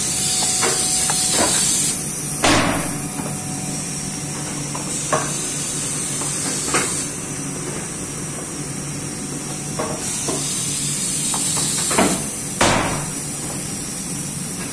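Muller Martini Amigo Plus perfect binder running: a steady mechanical hum under a high hiss that swells and fades, with sharp clunks every couple of seconds.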